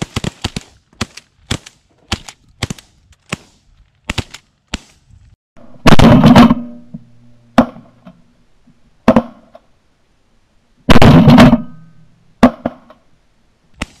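Several shotguns firing a ragged volley into a passing flock of pigeons: many sharp reports close together over the first few seconds, then single shots spaced out. The two loudest are longer, drawn-out blasts about six and eleven seconds in.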